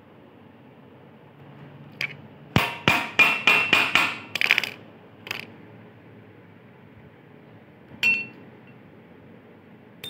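Rusted ball bearing being knocked out of a ceiling fan's cast metal end cover: about six sharp, ringing metal-on-metal strikes in quick succession, then a few lighter knocks, and a single clink near the end.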